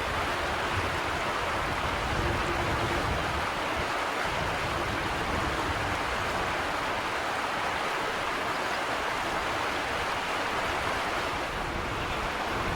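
Steady rushing of flowing water, an even hiss without pauses or changes.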